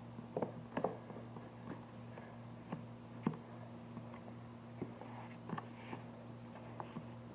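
Light, scattered taps and clicks as a hand presses a glued luxury vinyl plank down into place, over a steady low hum.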